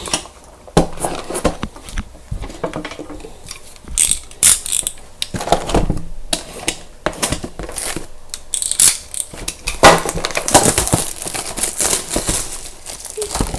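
A trading-card box and its packaging being handled: irregular crackling, rustling and clicking, with the busiest stretch about ten seconds in.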